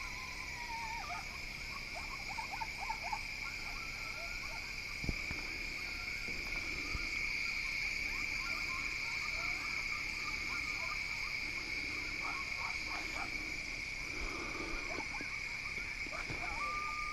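A steady chorus of calling frogs: an unbroken high trill, with faint scattered calls under it.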